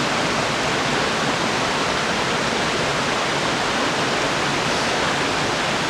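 Fast-flowing moorland river rushing around granite rocks, a steady full-range rush of water.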